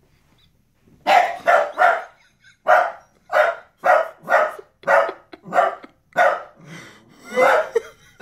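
Dachshund barking repeatedly at a vacuum cleaner: about a dozen short, sharp barks in quick succession, starting about a second in.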